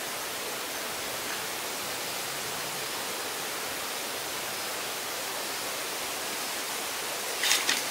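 Steady, even hiss with no clear pitch or rhythm, like outdoor ambience or noise on the recording, with a quick cluster of sharp clicks near the end.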